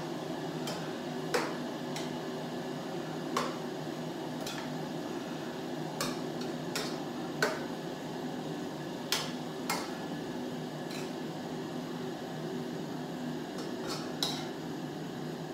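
A spatula knocking and scraping against a frying pan while chicken and vegetables are stir-fried, giving sharp clicks at irregular intervals about every second. Underneath is a steady low hum.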